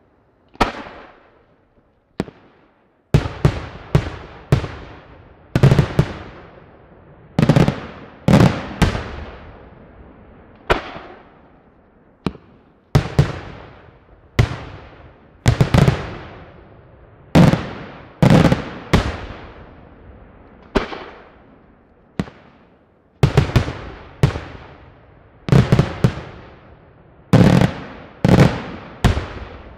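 Daytime fireworks: aerial shells bursting overhead in a rapid, irregular string of loud bangs, sometimes two or three close together, each trailing off in an echo. After a single bang under a second in, the barrage runs nearly nonstop from about three seconds in.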